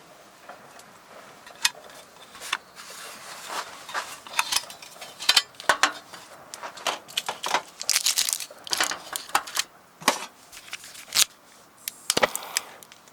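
Camping gear being handled by hand: irregular clinks and knocks with bursts of crinkling and rustling, like pots, utensils and packaging being moved about.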